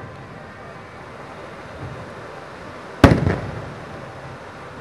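Japanese aerial firework shell bursting: one sharp, loud bang about three seconds in, followed by a few quick trailing reports that die away.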